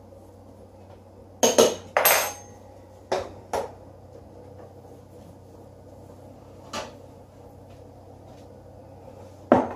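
A few sharp clinks of a metal fork against a ceramic bowl, then the fork set down on the countertop about a second and a half in, followed by scattered light knocks and a louder knock near the end.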